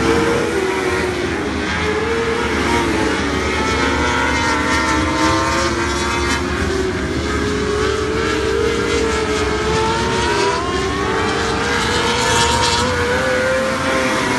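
Two 600 mini sprint race cars' 600cc motorcycle engines running hard, their pitches rising and falling as they accelerate down the straights and lift for the turns.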